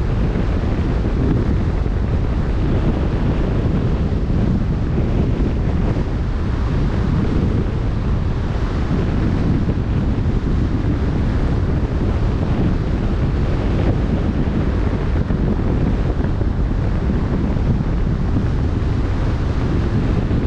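Wind buffeting the microphone in a deep, even rumble over the steady wash of open-sea waves.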